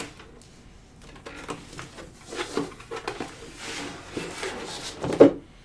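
Cardboard product box being handled and opened: cardboard rubbing and sliding with small knocks, and a sharper knock about five seconds in.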